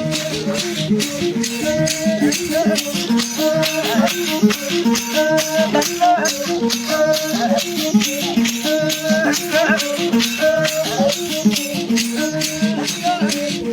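Background music with a fast, steady shaker rhythm under a melody and bass line.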